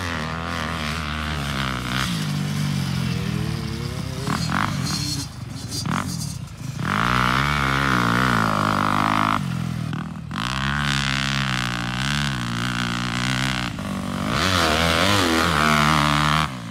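Yamaha motocross bike engine revving up and dropping back several times as it accelerates through the gears on a dirt track. It is loudest in two stretches, in the middle and near the end, as the bike passes close.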